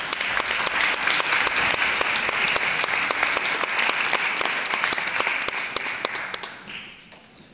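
Audience applause, a dense patter of many hands clapping, dying away near the end.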